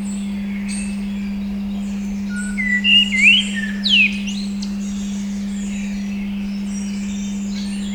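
A steady 200 Hz pure tone held throughout, with birdsong over it: faint high chirps all along and a few loud rising and falling bird whistles about three to four seconds in.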